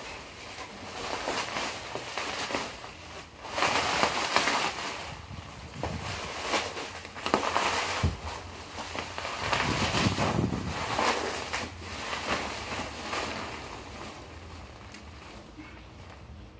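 Plastic bubble wrap rustling and crinkling in irregular bursts as it is pulled off and bunched up by hand, dying down over the last couple of seconds.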